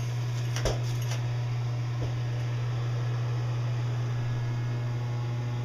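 Bathroom exhaust fan (the shower blower) running with a steady low hum, with a light knock under a second in.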